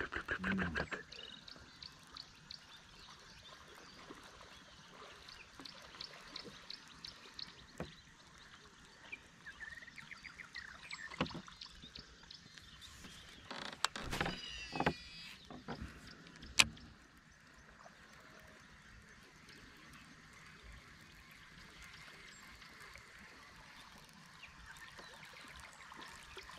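Quiet open-air ambience aboard a small fishing boat: faint runs of short high chirps, a few soft knocks and scrapes of gear against the boat, and one sharp click past the middle.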